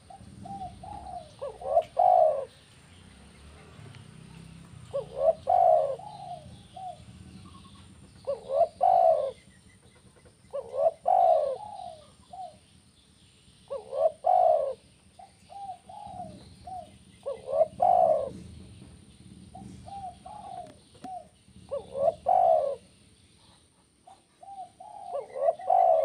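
Spotted dove (tekukur) cooing: about eight phrases, one every three seconds or so, each a few short notes leading into a louder, stressed coo.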